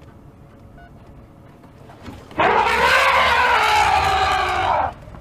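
African elephant trumpeting once, loud and about two and a half seconds long, starting about two and a half seconds in: a threat call as it charges at wild dogs.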